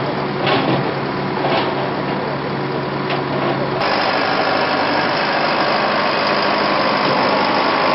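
Motor vehicle engine running with a steady low hum under a wash of noise. The sound changes abruptly a little under halfway through, like a cut between two recordings.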